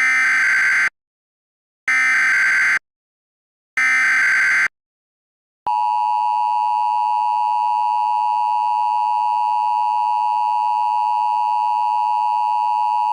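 Emergency Alert System SAME header: three short bursts of warbling data tones, each just under a second long. About a second after the last burst comes the steady two-tone EAS attention signal, which announces an emergency alert.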